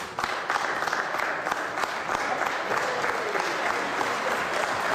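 Members of Parliament applauding in the debating chamber: a dense, steady round of many hands clapping that starts suddenly and keeps going.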